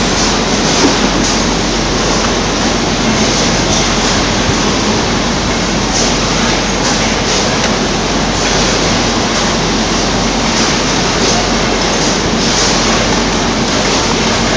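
Citrus sorting and grading line running: a loud, steady machinery din with a low hum, as oranges roll along the conveyors.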